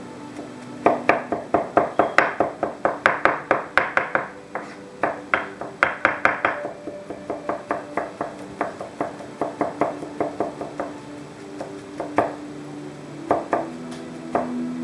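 Knife chopping vegetables on a cutting board: a fast run of sharp strokes, about four or five a second, then slower, lighter cuts, and a few separate knocks near the end.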